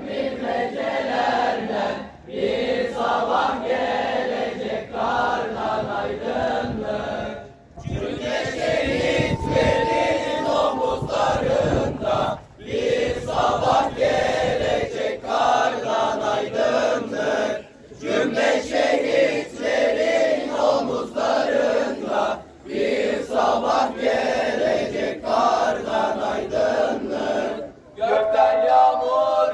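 A group of teenage boys singing together without accompaniment, phrase after phrase, with a short breath pause about every five seconds.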